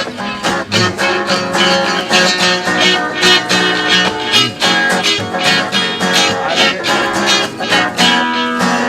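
Acoustic guitar playing a fast instrumental passage of strummed and picked strokes, ending on a held chord that rings out near the end.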